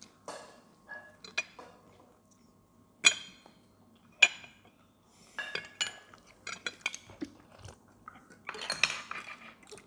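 Metal cutlery clinking and scraping against plates and bowls during a meal. Two sharp clinks that ring briefly come about three and four seconds in, followed by a run of lighter clicks and a denser patch of scraping and clatter near the end.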